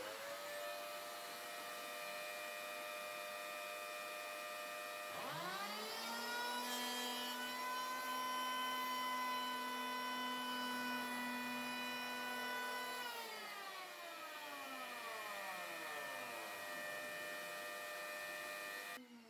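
Handheld electric planer motor spinning up with a sharply rising whine about five seconds in, running steadily while it shaves a 3 mm-deep chamfer along a board's edge, then winding down with a long falling whine. A steadier whine runs underneath throughout.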